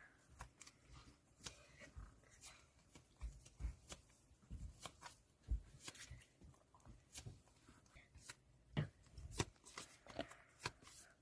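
Photocards and their plastic packaging being handled quietly: soft irregular taps, slides and crinkles, several a second.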